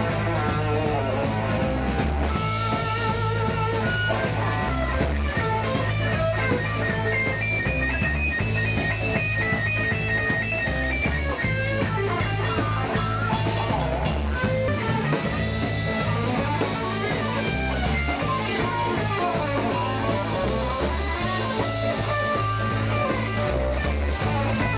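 Live band playing an instrumental passage: electric guitars, one of them a semi-hollow body, over drums and low steady bass notes, with a melodic guitar line bending in pitch.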